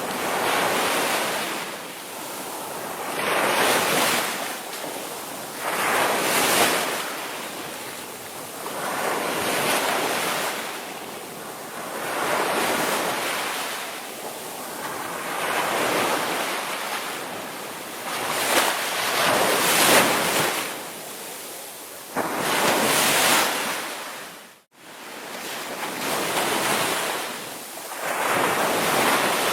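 Ocean waves breaking and washing ashore in a steady series of surges, one every three seconds or so. The sound cuts out for an instant about three quarters of the way through.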